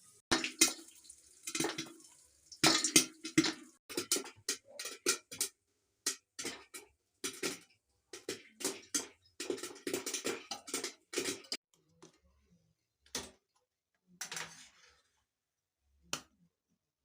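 Popcorn popping: sharp, irregular pops, many close together at first, then thinning to a few scattered pops near the end as the batch finishes.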